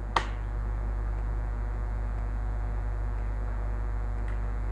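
Steady low electrical mains hum, with one sharp click just after the start.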